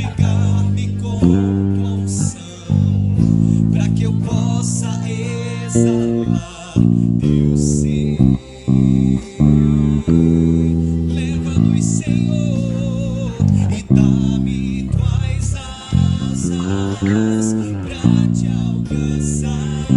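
Instrumental passage of a worship song played by a praise band, with a prominent electric bass guitar holding low notes under sustained chords that change every second or two.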